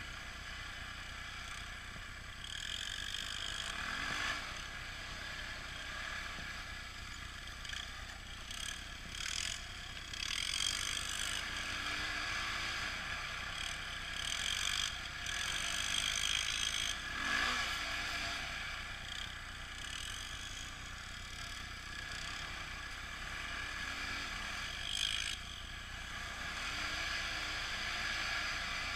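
ATV (four-wheeler) engine running while riding a dirt trail, its pitch rising and falling a few times with the throttle, with occasional rattles and knocks from the ride over bumps.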